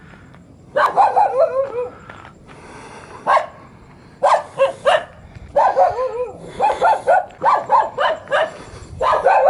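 Dog barking over and over in quick runs of barks, starting about a second in, the barks often falling in pitch.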